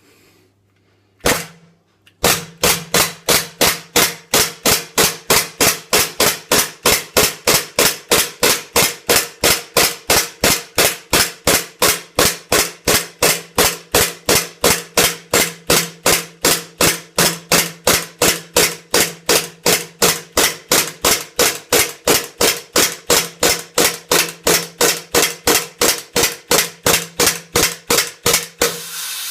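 WE G17 gas blowback airsoft pistol firing shot after shot on one fill of gas: a single crack about a second in, then an even run of sharp cracks with the slide cycling, about three a second, which near the end run together into a short hiss. It is a gas-efficiency test, counting the shots one magazine fill gives.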